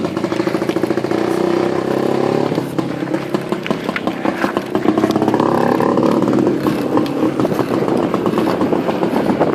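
IZh-49 motorcycle's single-cylinder two-stroke engine running, its speed rising and falling a few times.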